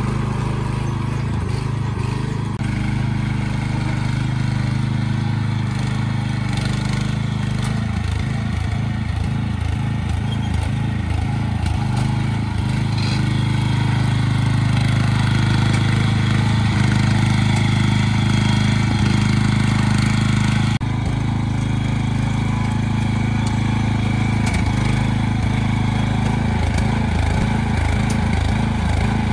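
Small engine of a Yamabiko tracked forestry carrier running steadily while it hauls logs, its note shifting slightly a couple of times.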